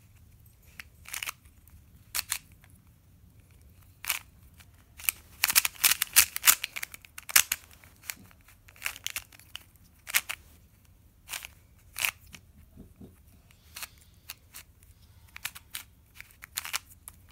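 Plastic Square-1 puzzle being turned by hand: irregular clicks and short clacking rattles as its layers are twisted and flipped, busiest a few seconds in.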